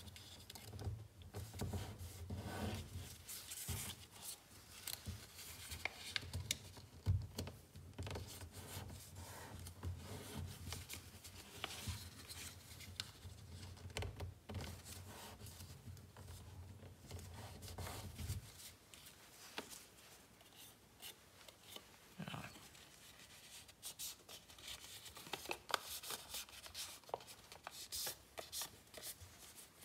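Paper being folded and creased by hand into a paper airplane: irregular rustling and crinkling, with sharp scraping strokes as the folds are pressed flat.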